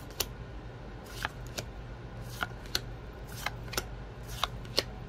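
A stack of Magic: The Gathering trading cards being flicked through one card at a time, the card stock giving crisp snaps that come in quick pairs about once a second.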